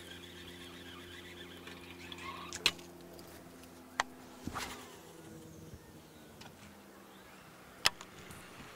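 Steady low hum of a boat motor running, with three sharp clicks and a low thump from the angler's casting tackle and boat as a lure is cast.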